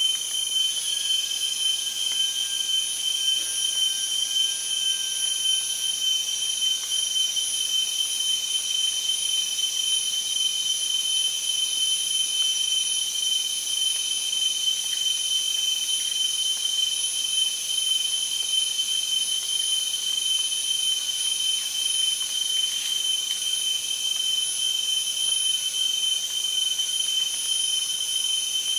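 Steady, unbroken chorus of forest insects: a high shrill held at several pitches at once.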